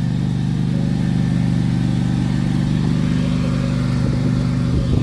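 Riding lawn tractor's small engine running steadily at low speed while towing a second, non-starting lawn tractor.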